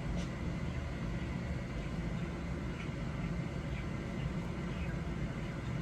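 Steady low hum of room air conditioning, with a few faint light clicks from a watch band being handled.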